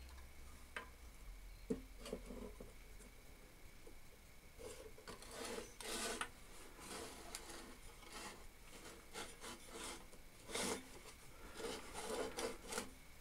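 Faint scraping, rubbing and light knocks of a small scrap-metal lathe sculpture being handled and turned around on a wooden workbench top.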